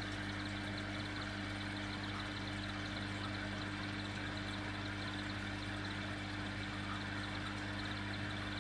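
Steady electrical hum of aquarium equipment, a few low tones held level, over a light even hiss of moving water.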